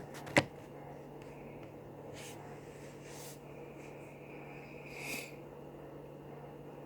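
A single sharp click about half a second in, over a steady low hum, followed by a few faint soft rustling noises.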